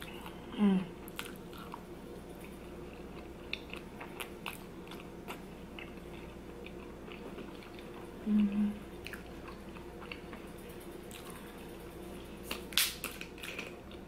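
Close-miked chewing of gravy-soaked fries with wet mouth clicks and smacks, a cluster of sharper clicks near the end. Twice a short closed-mouth hum breaks in, the first sliding down in pitch about half a second in, the second about eight seconds in.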